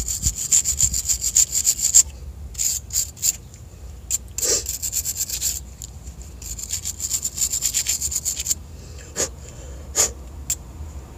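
Steel wire brush scrubbing corrosion off the arm of a transmission neutral safety switch. Quick back-and-forth scratchy strokes come in several runs with short pauses between them, and a few single strokes near the end.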